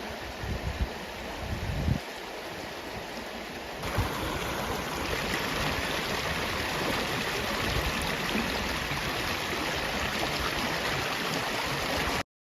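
Creek water rushing steadily, with a few low thumps in the first two seconds. About four seconds in the rush gets louder and fuller, then it cuts off abruptly near the end.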